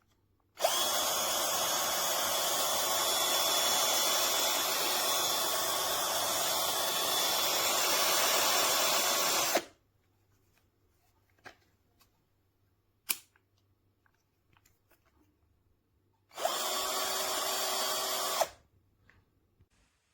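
MHPRO 21V cordless drill driver with a screwdriver bit, motor running steadily for about nine seconds, then a sharp click, then running again for about two seconds.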